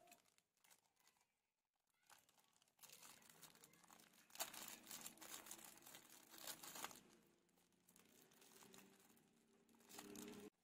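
Packaging being handled and opened, crinkling and rustling faintly with a few sharp crackles. It comes in spells: a long one after a quiet start, then a short one near the end.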